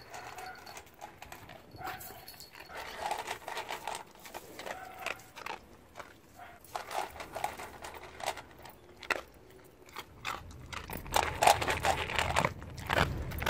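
Siberian husky eating dry kibble from a steel bowl, with irregular crunching and chewing that grows denser and louder near the end.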